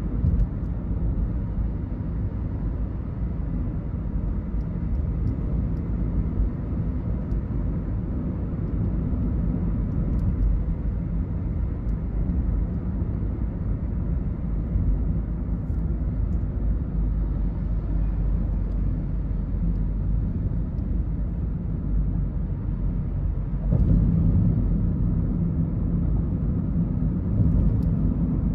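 Steady low rumble of a car's engine and tyre noise on a highway, heard from inside the cabin. The rumble gets louder about three-quarters of the way through.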